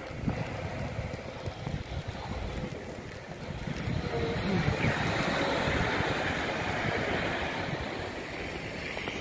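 A vehicle passing on a snowy street. Its sound swells about halfway through and then fades, over a low, uneven rumble of wind on the microphone.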